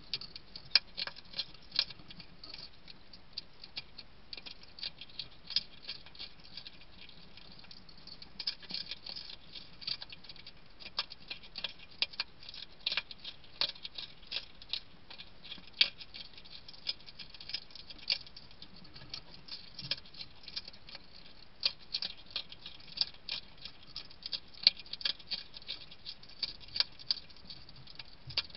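European hedgehog chewing and crunching food from a bowl: a fast, irregular run of sharp wet clicks and smacks that goes on without a break.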